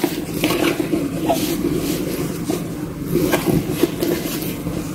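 A Kate Spade Chelsea nylon backpack being handled and shifted about, its nylon fabric rustling and scraping.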